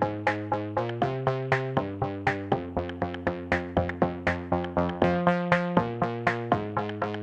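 Background music: an electronic track of quick, evenly spaced plucked synth notes, about four a second, over held bass notes that change every second or so.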